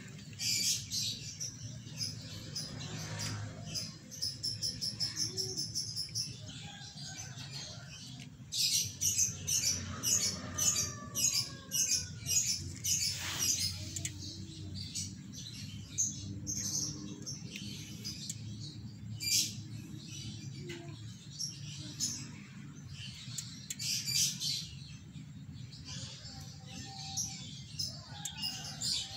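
A cat chewing and crunching pieces of small fish with their bones, close to the microphone: quick runs of crisp, wet crunches that come and go in bouts, over a steady low background rumble.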